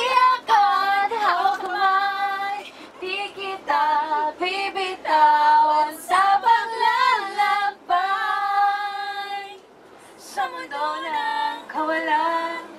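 One voice singing a slow song, holding long notes that waver in pitch, with a short break about ten seconds in.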